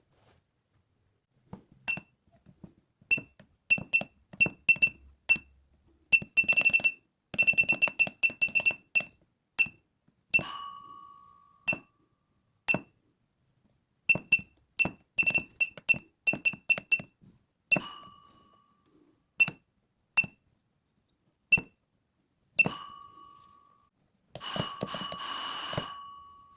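Arduino school bell device beeping: short high beeps, each with a click, come in quick runs as its control buttons are pressed, with a lower tone that rings on and fades now and then. Near the end it gives a longer ring of about two seconds.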